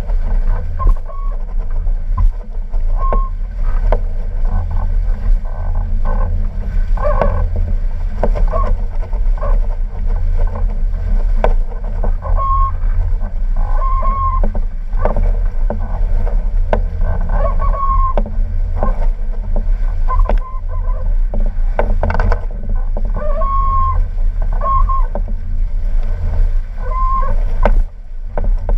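Wind buffeting the microphone of a camera mounted on a sailing catamaran's bowsprit, over the rush of water past the hulls. Short squeaking tones come and go every second or two.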